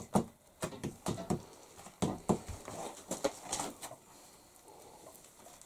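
Mason's trowel working clay mortar into a brick stove: irregular scrapes and light knocks of the trowel on clay and brick, dying away after about four seconds.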